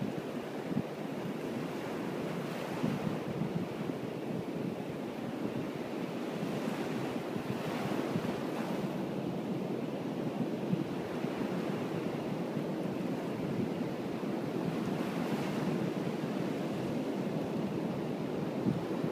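Ocean surf washing up the beach, a steady rush that swells twice, with wind on the microphone.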